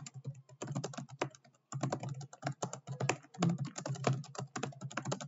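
Fast typing on a computer keyboard: a quick, dense run of keystrokes, broken by a short pause about a second and a half in.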